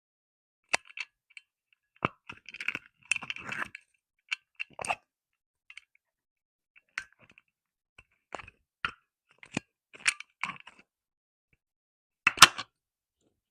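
Small slime jars being handled and set down on a wooden surface: irregular sharp taps and clicks with silence between, a busier patch of rattling clicks a few seconds in, and the loudest knock near the end.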